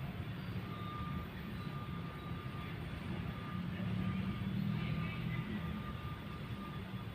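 A steady low motor hum that swells a little about four seconds in, with a faint, thin high tone sounding on and off.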